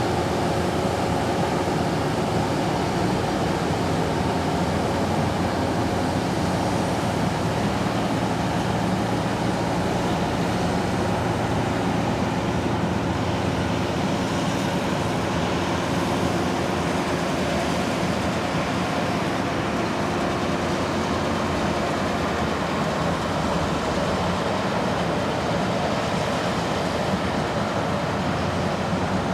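Massey Ferguson combine harvester running steadily, its engine and threshing machinery making an even, continuous din.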